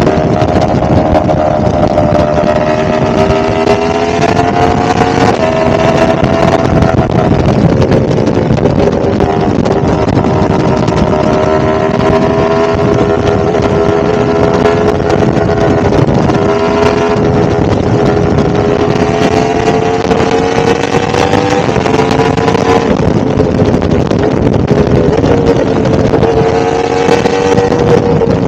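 1000cc motorcycle engine running at a steady cruise. Its pitch slowly climbs and eases back with small throttle changes, with a couple of brief shifts in tone, over a constant rush of wind and road noise.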